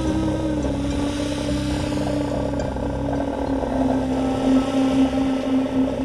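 A Kazakh ethno-folk ensemble ends a piece on a long held note over a steady low drone. A sybyzgy end-blown wooden flute and a bowed kylkobyz (two-string horsehair fiddle) sound together, and the held note dips slightly in pitch about half a second in.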